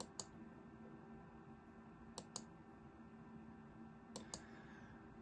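A computer mouse clicking: three pairs of quick sharp clicks, about two seconds apart, over a faint steady hum.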